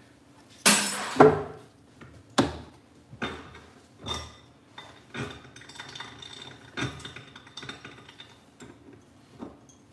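Metal hand tools and parts clinking and clattering on a workbench: a loud double clank about a second in, then scattered single knocks and clinks about once a second.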